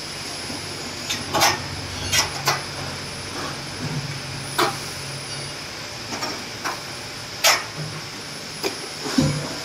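Aluminium scaffold tower tubes and braces knocking and clicking against the frame as they are handled and hooked into place. About ten irregular sharp knocks over a steady hiss.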